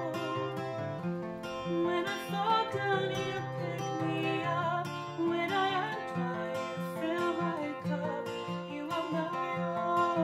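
Background music: strummed acoustic guitar with a voice singing over it.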